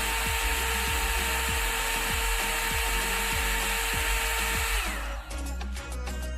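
One-step hot-air brush hair dryer running: a steady rush of air with a high motor whine. About five seconds in it is switched off and the whine winds down.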